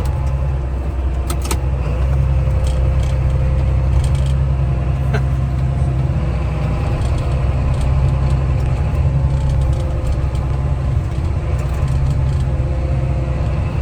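Diesel loader tractor's engine running steadily while the tractor works a snow blade chained to its loader bucket through a snowdrift, with a few scattered clinks and rattles.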